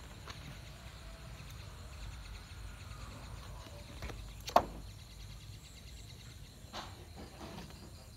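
A few sharp knocks over a low steady background rumble, the loudest about halfway through, as a young monkey clambers over a parked scooter's seat and plastic handlebar cover.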